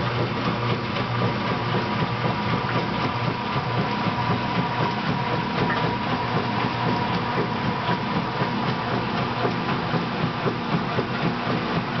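Whirlpool-built Kenmore 800 top-load washing machine running its wash cycle: a steady mechanical hum with a constant whine over it.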